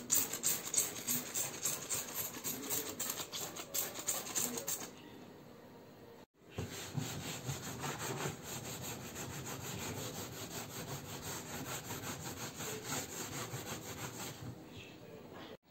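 A brush scrubbing back and forth in quick, even strokes over the wet hard plastic shell of a suitcase, working basin-cleaning liquid into leftover sticker glue. There are two bouts of scrubbing, the first louder, with a short break about a third of the way in.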